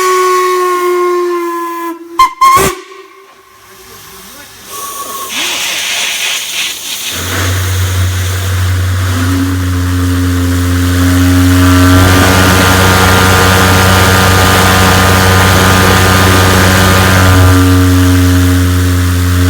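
Steam whistles blowing. One whistle's steady tone dies away in the first seconds, followed by a couple of sharp knocks. Then hissing steam builds into another, deep-toned chime whistle, whose several notes join one after another into a loud held chord.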